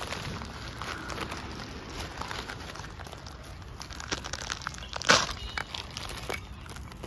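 Crinkling and crunching of dry plastic litter and brittle burnt debris, with one loud sharp crackle about five seconds in.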